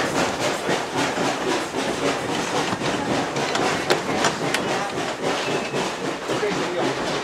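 Open passenger car of a tourist steam train rolling along the track: a steady clatter and rattle of wheels and car, with a sharp clank about four seconds in.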